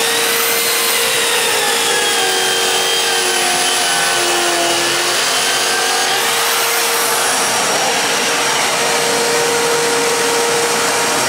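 Electric motor of a hand-held aluminium composite panel grooving machine running with its vacuum dust extractor as it cuts a groove. The high whine dips in pitch around the middle and climbs back about six and a half seconds in, over a steady hiss.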